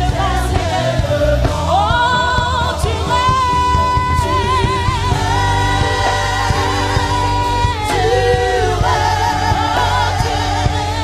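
Live gospel worship music: a woman's solo voice sings long held notes with a wavering vibrato over a full band.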